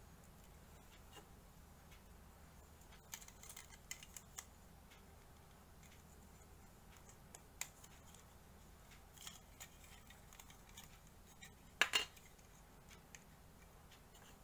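Hard plastic SD Gundam model kit parts being handled and pressed together: scattered light clicks and snaps, with a cluster a few seconds in and the loudest, a double snap, near the end.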